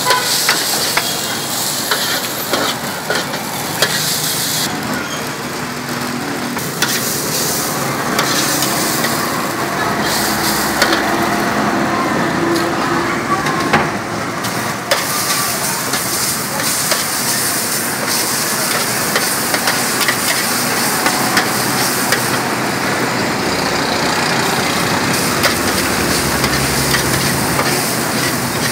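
Noodles sizzling in hot oil in a large steel wok while a metal spatula stirs and scrapes them, with frequent clicks of the spatula against the pan.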